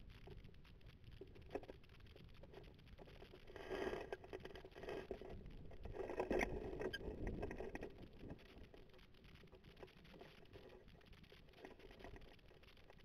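Wind rushing over a camera mounted on a hang glider's wing during a launch run and low flight, with a steady rough rustle and crackle from the moving air and the sail. It swells twice, about four seconds in and again around six to seven seconds in.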